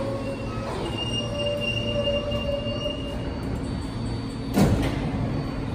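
R160 subway train braking into the station, with the rumble of the cars and steady high squealing tones from wheels and brakes. About four and a half seconds in there is a short, loud burst of noise as the train comes nearly to a stop.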